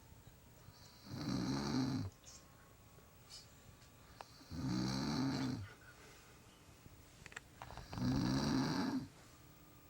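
A woman snoring while asleep on a couch: three loud snores, each about a second long and roughly three and a half seconds apart, with quiet breathing between.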